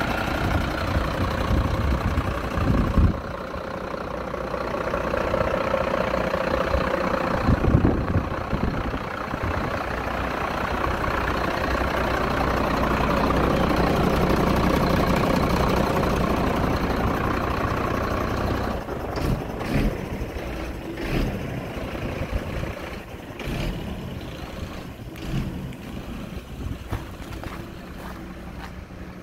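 Mercedes-Benz Atego truck's diesel engine idling steadily, loudest around the middle and fading in the second half, with a few short knocks near the end.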